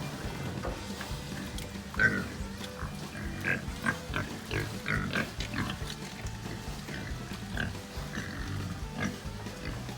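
Hogs squealing and grunting at feeding time, over background music; the loudest squeal comes about two seconds in.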